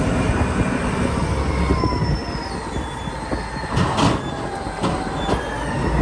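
Caterpillar 992C wheel loader's diesel engine running under load, with high whining tones that drift in pitch, as it tips a bucket of dirt into a truck trailer. A burst of clatter about four seconds in.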